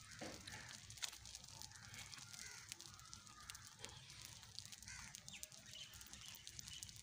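Faint light rain: a soft patter of scattered drops over a steady haze, with one sharper tick about a second in and a few faint bird calls.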